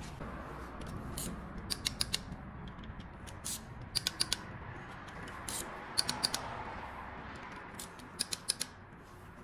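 Long-handled ratchet wrench clicking in short bursts of three or four clicks, every couple of seconds, as a bolt on an engine's cylinder head is worked.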